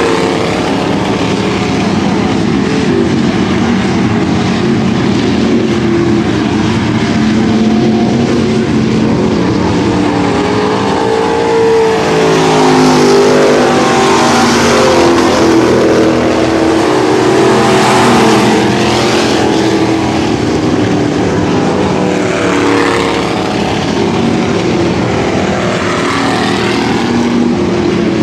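Dirt-track bomber-class stock car engines racing around the oval. Their pitch rises and falls as the cars pass, and they are loudest around the middle.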